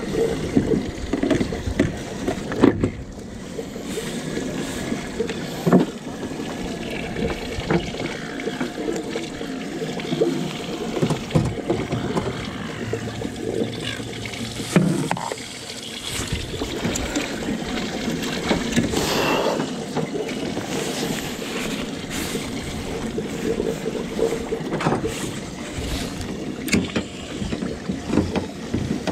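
Water lapping against the hull of a small fishing boat, with scattered knocks and clicks from handling rods and gear on board.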